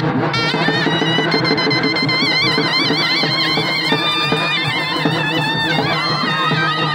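Loud folk procession music: a reed wind instrument playing a wavering, ornamented melody over steady drumming.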